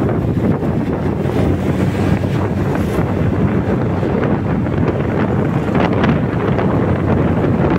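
Steady wind noise buffeting the microphone of a scooter riding at about 40 to 50 km/h.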